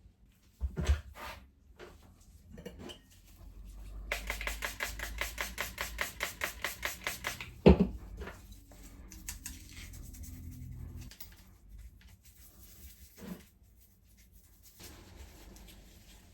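Workshop handling sounds: a couple of knocks, then about three seconds of rapid, even scraping strokes, several a second, ending in one sharp knock, the loudest sound.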